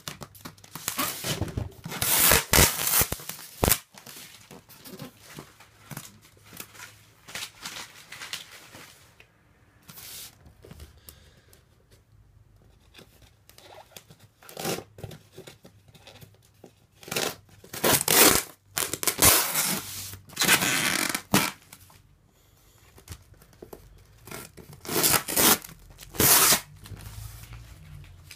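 Brown packing tape being peeled and ripped off a styrofoam box in a series of noisy rips, each lasting up to about a second, in bunches at the start, around the middle and near the end, with quieter handling between.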